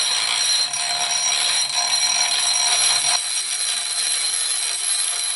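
Cordless Dremel rotary tool with a sanding drum spinning at speed against a pipe: a steady high-pitched whine over a grinding hiss. It is cutting a shallow groove about 1 mm deep into a smooth pipe so that a band clamp can grip.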